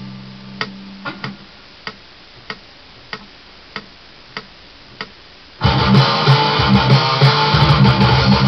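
A low electric guitar note dies away over the first second while evenly spaced clicks tick about every 0.6 seconds. About five and a half seconds in, distorted electric guitar comes in loud, playing a choppy low metal riff.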